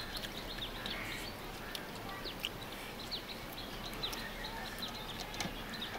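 Small birds chirping: many quick, short, high notes scattered throughout.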